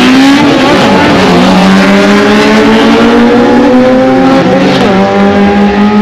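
Race car engines at full throttle accelerating down the drag strip: a loud, sustained engine note whose pitch climbs slowly.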